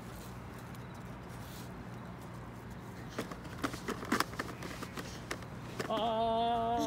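Passing train's air horn sounding a loud, steady chord of several tones, starting near the end. Before it there is a low steady hum with a few light knocks.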